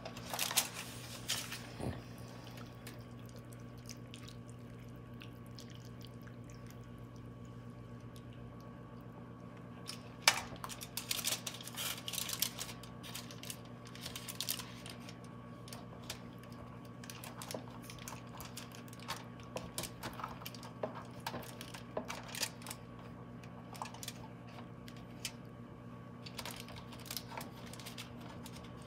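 Light clicks, taps and handling sounds from kitchen food prep, coming in irregular clusters, over a steady electrical hum in the room.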